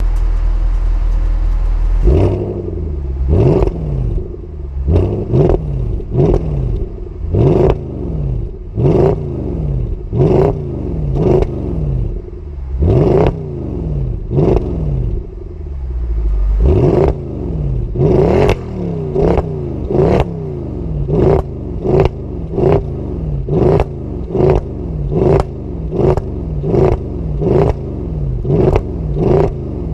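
Mercedes CLS 63 AMG's 6.2-litre naturally aspirated V8 through its stock exhaust, idling for about two seconds and then revved in quick throttle blips, roughly one a second, each rev falling back toward idle. About halfway through it settles into a short idle before the blips resume.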